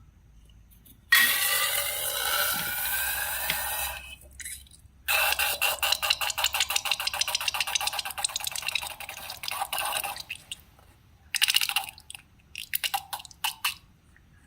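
Air squealing out of a stretched balloon neck: a hissing squeal that rises in pitch, then a longer spell of fast fluttering crackles over a steady whistle, and two short sputtering bursts near the end.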